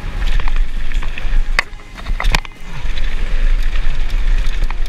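Mountain bike riding down a bike-park trail: wind buffeting the microphone with a steady deep rumble, tyre and chain noise, and a couple of sharp knocks near the middle as the bike hits bumps.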